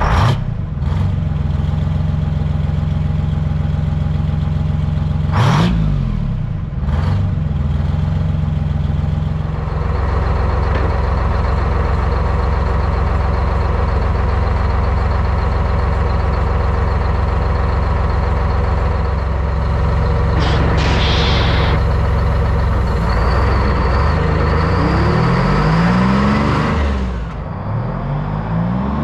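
Diesel semi-truck engines running, typical of Detroit Diesel two-strokes, in several clips one after another; the sound changes abruptly a few times, with the revs rising and falling near the end.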